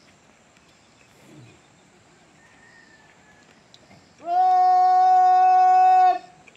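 A loud, steady horn-like note held at one pitch for about two seconds, starting about four seconds in and stopping abruptly; before it only faint background.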